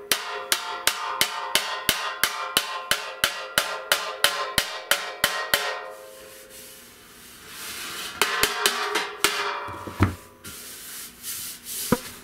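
Rawhide mallet tapping dents out of the silver-plated brass bell of a 1917 H. N. White King baritone saxophone held against a steel bodywork dolly, the bell ringing briefly after each light tap. A quick, even run of taps, about three a second, then a pause, then a few scattered taps and two louder knocks near the end.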